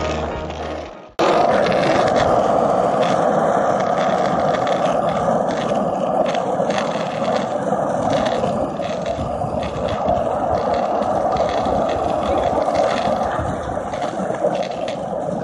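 Skateboard wheels rolling over asphalt: a steady rumbling scrape, with an occasional knock from the road surface. A music track fades out and stops about a second in.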